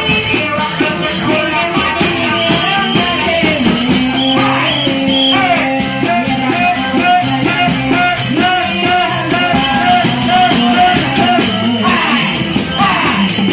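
Loud music with a fast, steady drumbeat under a melodic lead line that glides up and down in places.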